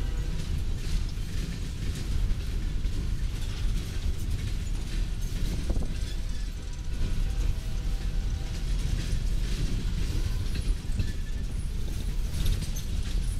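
Coal hopper cars of a freight train rolling past: a steady low noise of steel wheels on rail, with constant clicks and knocks from the running gear and car bodies.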